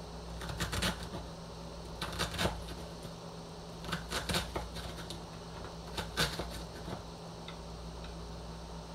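Kitchen knife cutting onion on a wooden cutting board: irregular knocks of the blade on the board, often in quick pairs, over a steady low hum.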